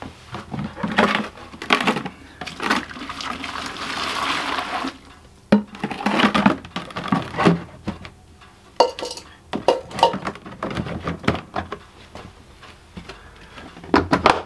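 Hard plastic knocks and clatters from a fishing bait bucket as frozen fish are laid in its bait tray over hot water and the lid is pressed on, with a few seconds of hissing rush in the first half.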